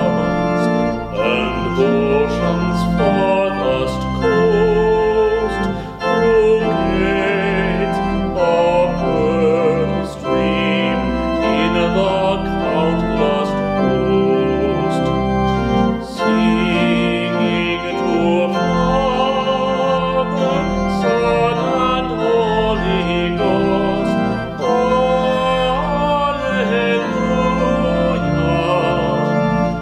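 A man singing a hymn solo, his voice wavering with vibrato, over held organ chords.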